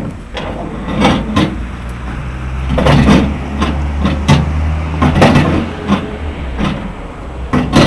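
GAZ-67's four-cylinder flathead engine being turned over with the hand crank, a series of uneven knocks from the crank and the engine's compression strokes, until near the end it catches and starts running with a fast, even beat. It is being hand-started because the battery was run flat by headlights left on.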